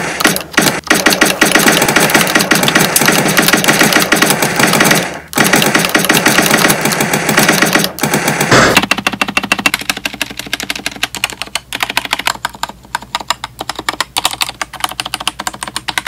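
Fast typing on a pink Akko mechanical keyboard, a dense run of key clacks. About eight and a half seconds in it changes to slower, separate key presses on the Akko Sailor Moon keyboard, including its spacebar.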